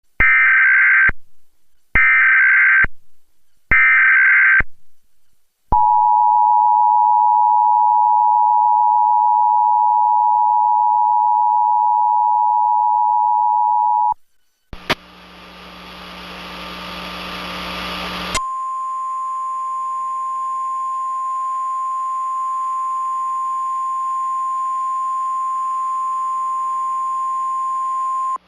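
Emergency Alert System tone sequence: three short bursts of SAME header data tones, then the two-tone EAS attention signal held for about eight seconds. After a brief gap, radio hiss with a low hum fades up, and a few seconds later the steady single-pitch 1050 Hz NOAA Weather Radio warning tone sounds over the hiss.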